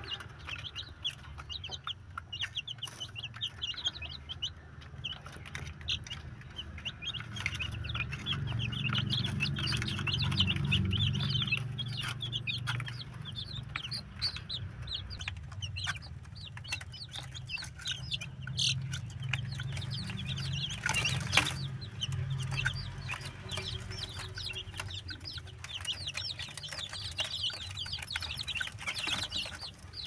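A cage of young chicks peeping steadily, many short high peeps overlapping, with occasional sharp clicks and a low rumble underneath.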